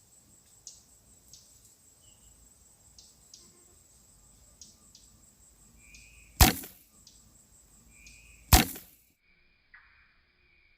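Two loud, sharp noises about two seconds apart, over a faint steady high whine with scattered light clicks; the background changes abruptly just after the second noise.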